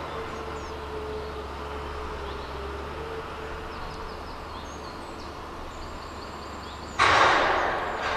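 Forestry harvester running steadily, a continuous machine drone with a held tone, while small birds chirp now and then. About seven seconds in, a sudden loud rushing noise starts and fades over about a second.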